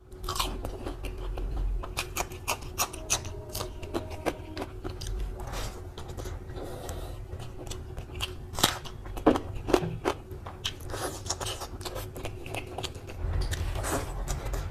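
Close-miked eating by hand: wet chewing and lip smacks with many short clicks, and fingers squelching through rice and curry gravy.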